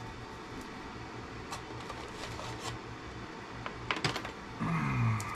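Light plastic clicks and taps from handling a small inline fuse holder, with two sharper clicks about four seconds in and a brief sound falling in pitch near the end.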